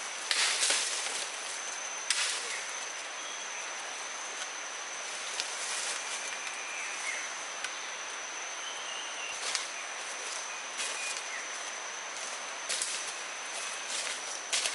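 Tropical forest ambience: a steady high-pitched insect drone, with a few brief rustles, the loudest just after the start and about two seconds in.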